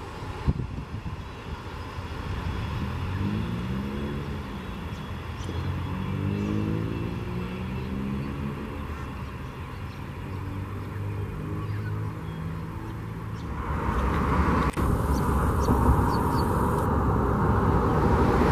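A train drawing near on the line: a humming mechanical tone that wavers and glides in pitch, then, from about three-quarters of the way in, a louder, rushing rumble of the train passing close.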